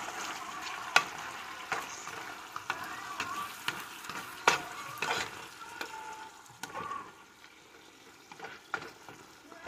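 Adobong sitaw (green beans and pork in sauce) sizzling in a square copper-coloured nonstick pan while a plastic spatula stirs it, with occasional sharp taps and scrapes of the spatula against the pan. The sizzle grows quieter in the last few seconds.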